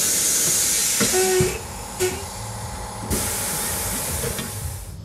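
Loud spraying hiss of pressurised air or aerosol in two long bursts, with a quieter gap between them; the second burst cuts off abruptly near the end.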